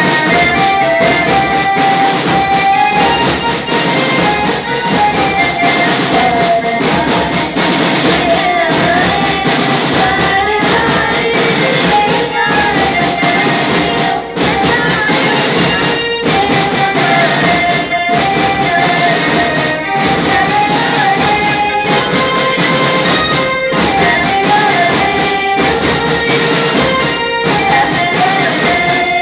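Loud instrumental music with a melody over a steady beat, broken by short regular pauses about every two seconds.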